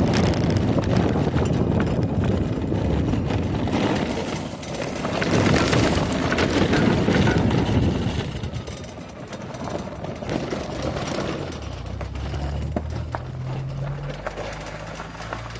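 Wind on the microphone and rumbling from riding an electric ATV over rough ground. The wind noise drops away about eight seconds in, and a low steady hum comes in near the end.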